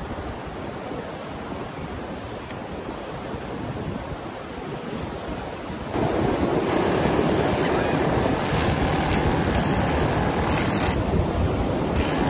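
Ocean surf and wind, with wind buffeting the microphone, as a steady rushing noise that turns louder about six seconds in.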